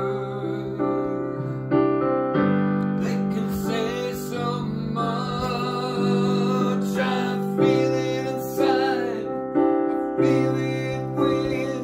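A man singing while playing chords on a digital piano; the middle stretch holds long sung notes with vibrato over the sustained chords.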